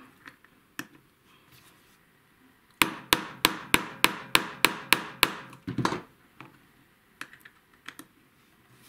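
Hammer tapping a pin punch, about ten sharp metal strikes in a quick run at roughly three a second, then a few lighter taps near the end. It is driving the gas tube roll pin back out of an AR-15 gas block.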